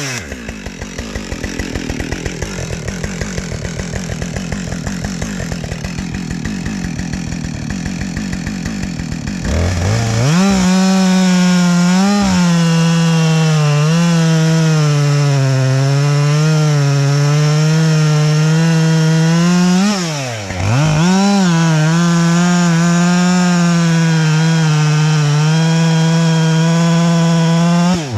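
Chainsaw idling with a rapid putter, then throttled up about ten seconds in and running at high revs, its pitch wavering as it cuts into wood. Near two-thirds through the revs drop briefly, then pick back up.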